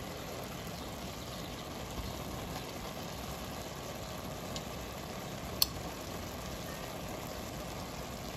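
Pot of half-cooked rice pilaf simmering on the stove with a steady low hiss of steam and bubbling, and a single light click about five and a half seconds in as a piece of fried chicken is set on the rice.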